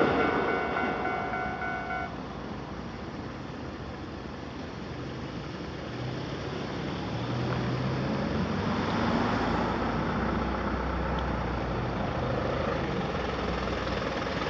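A Keisei commuter train passing through a level crossing fades away over the first two seconds, and a steady high tone stops about two seconds in. After a quieter moment, the low hum of road vehicle engines builds from about six seconds in and holds as traffic crosses.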